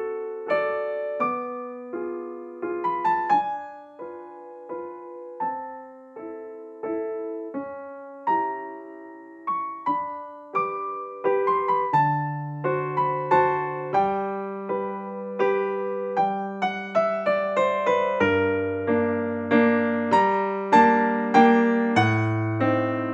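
Gentle background piano music: a melody of single struck notes that fade, joined by low sustained bass notes about halfway through.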